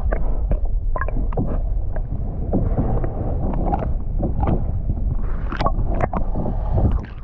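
Wind rumbling across the microphone, with irregular knocks and clatter of handling on a small boat. The rumble drops away suddenly near the end.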